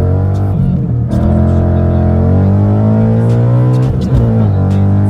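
Ford Mustang GT's 5.0 V8 accelerating hard through the gears, its pitch climbing steadily. The pitch drops at upshifts about a second in and about four seconds in, then climbs again.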